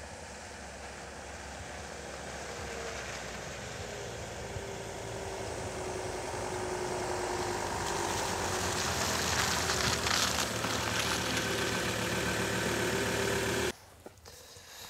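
A vehicle's engine running and slowly growing louder as it approaches, with a slight rise and fall in pitch, then cut off abruptly about a second before the end.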